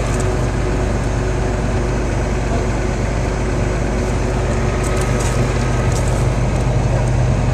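John Deere 330LC hydraulic excavator's diesel engine running steadily, a deep even hum.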